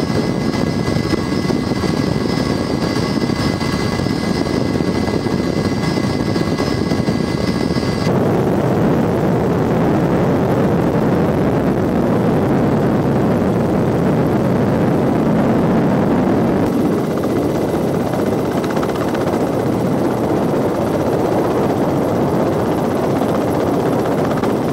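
Boeing CH-47 Chinook tandem-rotor helicopter in flight: steady rotor and twin-turbine engine noise. For the first few seconds it carries a steady high turbine whine; about a third of the way in the sound switches abruptly to a louder, denser rumble, heard from aboard the helicopter.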